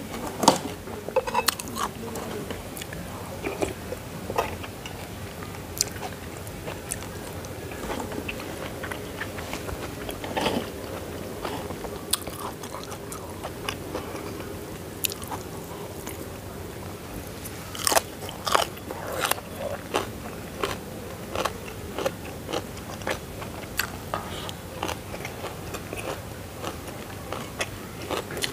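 Close-up eating sounds: chewing and crunching on vegetables and rice, with irregular sharp clicks of a metal spoon against a ceramic bowl, busiest about two-thirds of the way through.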